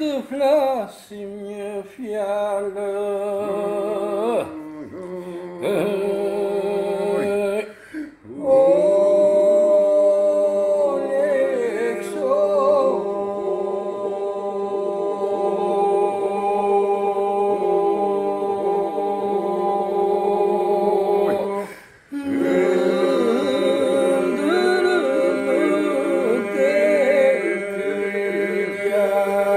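Albanian iso-polyphonic a cappella singing from the Vlorë region: solo voices (the lead 'taker' and the 'thrower' and 'breaker' parts) weave a melody over a steady drone held by the group. It starts in short phrases with pauses, then runs on continuously, with one brief break a little past two thirds of the way through.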